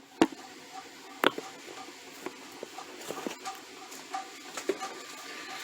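Scattered light knocks and clicks of objects being handled and set down on a hard surface, with two sharper knocks near the start.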